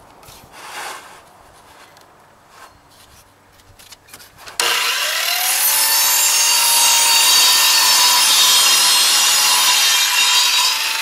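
Radial arm saw switched on about halfway through, its motor whining up to speed, then crosscutting a wooden board with a loud, steady sawing noise that eases a little near the end. Before it starts there are only a few light knocks from handling the board.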